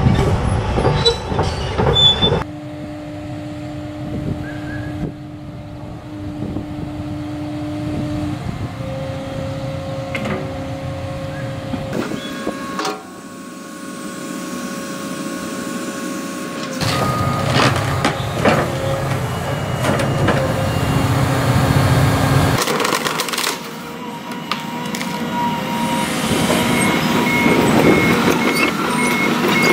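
Excavator's diesel engine and hydraulics running under load as it works a hydraulic tree shear, with a steady whine and engine drone. The sound changes abruptly several times, and there are occasional sharp knocks and a faint repeating beep near the end.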